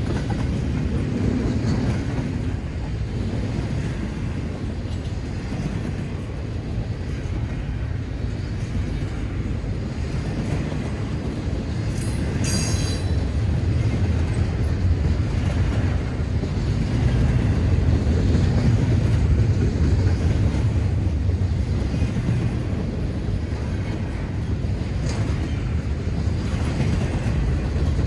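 Freight train of autorack and intermodal cars rolling past, a steady rumble of wheels on rail, with a brief high-pitched squeal about twelve seconds in.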